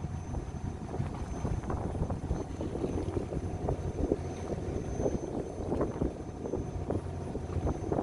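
Fishing boat's engine running with a steady low hum, mixed with irregular wind crackle on the microphone.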